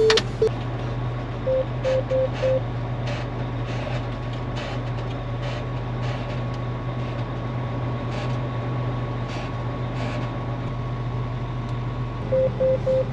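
Cotton picker's diesel engine running steadily while the header is let down, with a faint steady high tone over it. A run of four short electronic warning beeps sounds about two seconds in, and again near the end.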